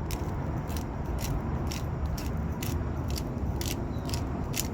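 Seasoned salt being shaken or ground over a salad: short, crisp ticks about two to three times a second, over a steady low background rumble.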